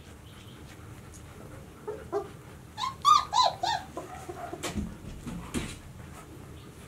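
26-day-old White Swiss Shepherd puppies squeaking: a quick run of about five short, high yips two to four seconds in, followed by a couple of soft scuffs.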